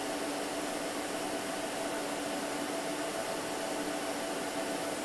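Steady cooling-fan hiss with a faint, even hum tone underneath, unchanging throughout.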